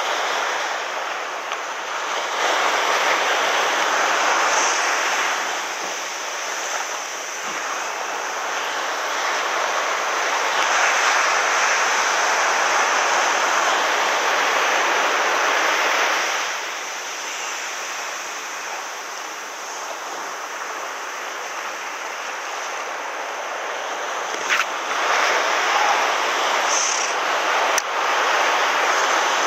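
Surf breaking and washing up a sandy beach close by, in swells: loud for most of the first half, easing off, then building again near the end.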